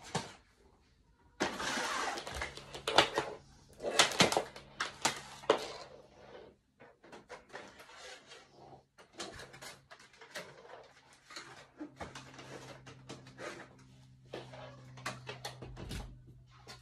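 Handling noises as plastic seed trays and a grow-light fixture are set up on a wooden shelf: rustling for the first few seconds, then scattered clicks and knocks. A faint, steady low hum starts about two seconds in and carries on underneath.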